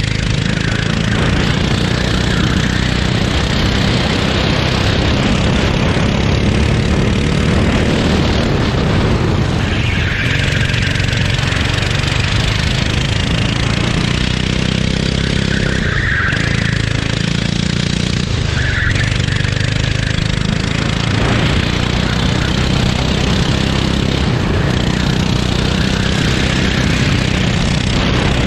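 Go-kart engine running hard under load, revs rising and falling through the corners and straights, heard close up from the driver's seat.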